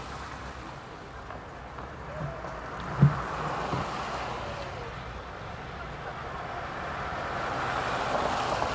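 Car driving through a snowy town street, heard from inside the cabin: steady road and tyre noise that swells twice, with a single sharp knock about three seconds in.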